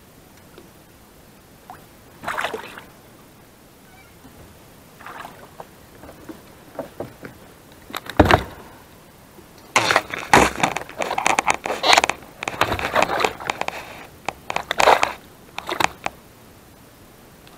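A hooked bass splashing at the water's surface as it is brought to the kayak, then a sharp thud about eight seconds in as it is swung aboard. This is followed by several seconds of irregular splashing, flopping and scraping as the fish thrashes and is handled against the plastic kayak.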